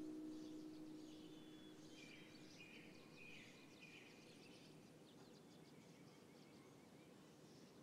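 Near silence: the last acoustic guitar note dies away over the first few seconds, leaving faint outdoor ambience with a few small-bird chirps.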